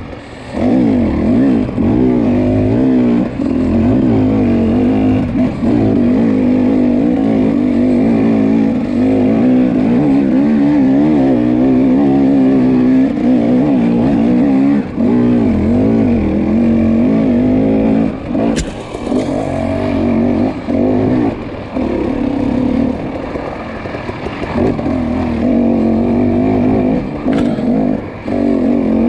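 Off-road racing dirt bike engine running hard, its pitch wavering up and down as the throttle is worked, with brief drops when the throttle is rolled off. There is a sharp click about two-thirds of the way in and another near the end.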